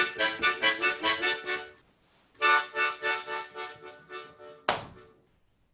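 Instrumental music: a quick run of rhythmic chords breaks off briefly, then starts again, slows and fades out, with one sharp stroke near the end.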